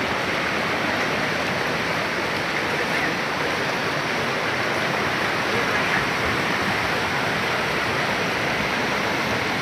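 Fast river water rushing over boulders through whitewater rapids, a steady, even rush.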